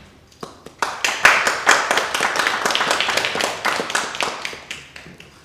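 Small audience applauding, with separate hand claps heard; the clapping starts about half a second in and fades away near the end.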